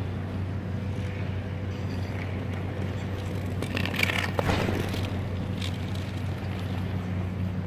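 Steady low mechanical hum of an indoor ice rink, with a brief scrape of skate blades on the ice about four seconds in.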